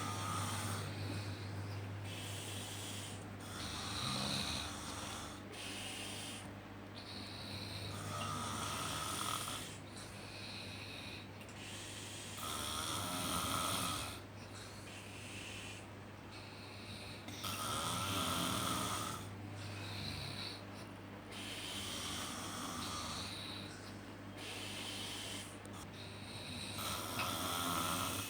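Human snoring: a stronger snore about every four to five seconds, with softer snores in between, over a steady low hum.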